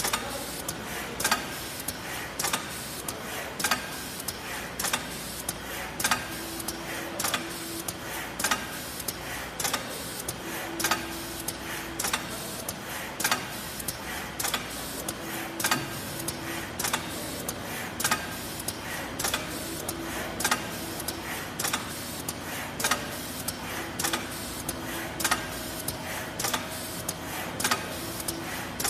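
Automatic face-mask folding machine running, its robot arm and feeders cycling: a sharp mechanical clack a little under once a second over a steady machine whir, with a short low hum coming and going every few seconds.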